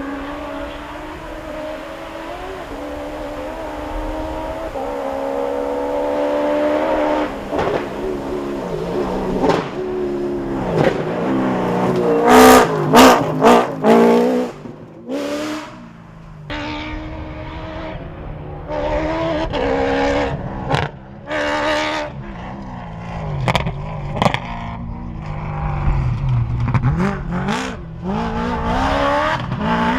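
Ford Ranger rally-raid race truck's engine revving hard and shifting up through the gears as it speeds past on a dirt track, several passes cut one after another. The loudest pass comes about halfway through, with tyres scrabbling on the loose dirt.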